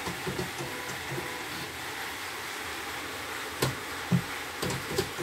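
Portable CNY computerised embroidery machine switched on for testing: a steady hum with a few soft mechanical pulses early on, then several sharp clicks and knocks from about three and a half to five seconds in.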